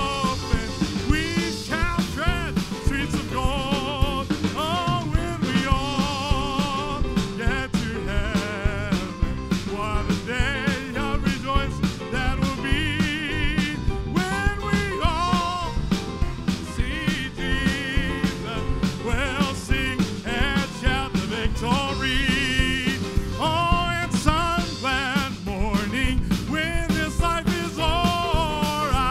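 Church music: singing with a wide vibrato over a band, with drums keeping a steady beat.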